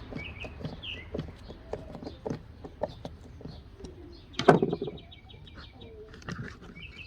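Hand-tool and handling clicks and knocks from a recoil starter being screwed back together, with one louder knock about four and a half seconds in. Birds chirp in the background, mostly at the start and near the end.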